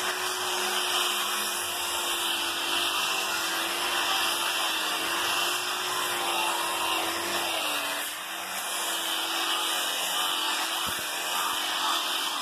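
DeWalt angle grinder running steadily with a sanding disc on a backing pad, sanding wood. Its motor hum wavers slightly in pitch around the middle as the disc works the surface.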